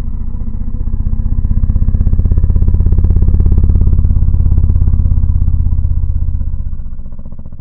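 Anime mecha sound effect: a loud, deep mechanical rumble with a fast, even throbbing pulse. It builds over the first couple of seconds and fades away near the end.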